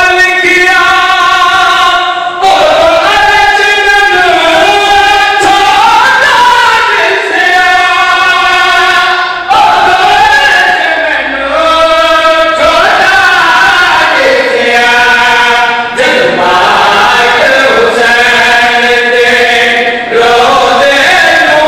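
Several men's voices chanting a devotional verse together into a microphone, in drawn-out phrases held for a second or two each, with brief breaks between them.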